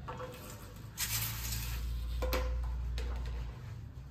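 Gloved hands massaging shampoo lather through wet hair at a salon backwash basin, wet squishing of the foam. A hissing rush comes about a second in, with a low rumble under it for a couple of seconds and a sharp click a little past the middle.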